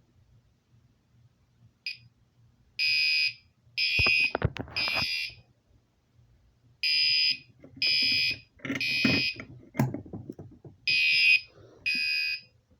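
Fire alarm horn sounding in a temporal-three pattern: three short blasts of about half a second each, a pause, then again, for about three rounds. It is loud. A few light knocks and rattles fall between the blasts.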